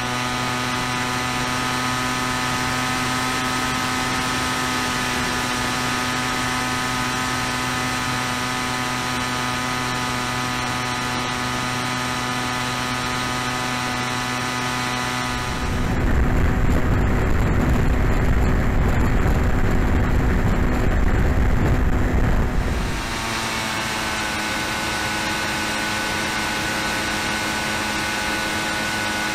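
Onboard sound of a DLE 60 two-stroke gasoline engine driving a VTOL drone in cruise flight, a steady drone heard on the airframe's camera. About halfway, a loud low rumble covers it for some seven seconds. Then the engine drone returns at a slightly different pitch.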